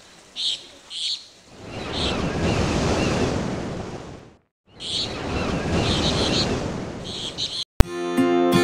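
Birds chirping over two slow swells of noise like surf washing in, each rising and fading over a couple of seconds with a brief silence between them. Near the end it cuts to acoustic guitar music.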